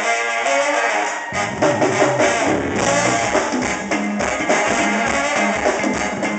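Live brass band music: brass and saxophones playing over electric guitar, with bass and drums coming in strongly about a second and a half in.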